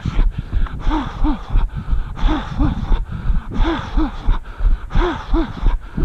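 Runner's heavy rhythmic breathing: voiced, panting exhalations in quick pairs about every second and a half, with the steady thuds of his footfalls between them.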